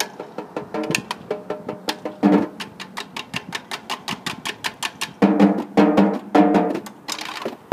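A snare drum quartet playing: a run of quick, light, even strokes, broken by loud accented snare hits about two seconds in and a cluster of them after five seconds.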